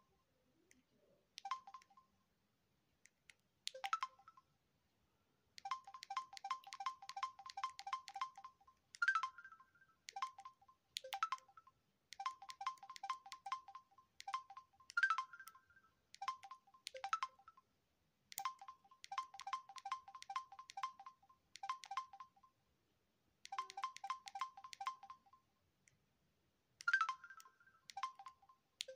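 Samsung SGH-Z400 mobile phone's keypad tones: short electronic beeps as the navigation and menu keys are pressed, often in fast even runs of several a second as the menu is scrolled, with an occasional higher-pitched tone among them.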